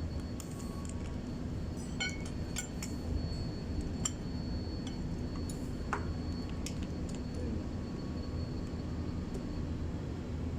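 A few sharp metallic clinks and clicks, spread out, from tools and bolts being worked on a Mercedes-Benz Actros truck engine during cylinder head removal, over a steady low hum.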